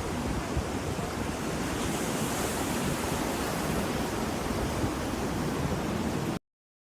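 Ocean surf: a steady rush of waves, swelling a little about two seconds in, that cuts off abruptly into silence near the end.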